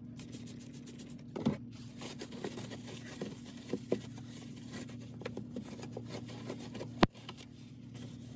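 Paper towel scrubbing and wiping a sink deck around the empty faucet holes, a continuous scratchy rubbing with small ticks and crinkles, over a low steady hum. A single sharp knock about seven seconds in is the loudest sound.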